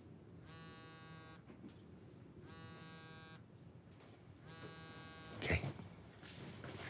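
Mobile phone on vibrate buzzing with an incoming call: three even buzzes, each just under a second long, about two seconds apart. A short, sharper noise follows near the end.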